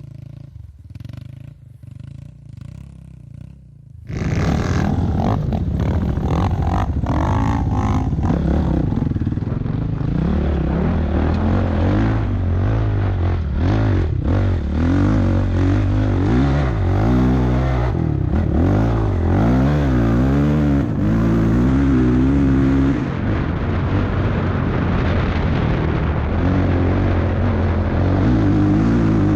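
Trail motorcycle engine, heard close, revving up and down as the bike is ridden over dirt. It is a low rumble at first, then gets suddenly much louder about four seconds in, with the pitch rising and falling through gear changes and throttle.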